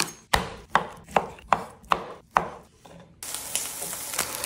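About seven sharp strikes of a chef's knife chopping bacon on a wooden cutting board, two to three a second. About three seconds in, this cuts to diced bacon sizzling in a frying pan, a steady hiss.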